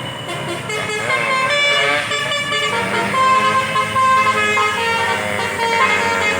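A tour bus's telolet basuri horn playing a tune: a quick run of loud, pitched horn notes, with a wavering bend in pitch about a second in.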